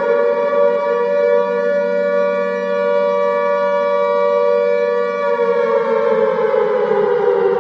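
A siren wailing on one steady pitch, then winding down with a falling pitch from about five seconds in.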